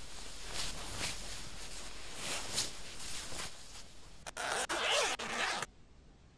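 Fabric rustling as a blue Superman costume is pulled on over the shoulders. About four seconds in comes a louder zip lasting about a second, as the costume's front zipper is pulled up.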